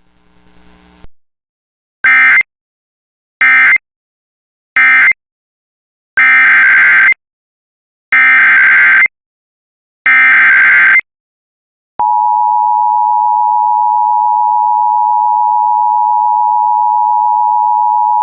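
Emergency Alert System (SAME) data bursts, the harsh digital screech of an alert: three short end-of-message bursts, then three longer header bursts for the next warning. About twelve seconds in, a steady attention tone starts and holds.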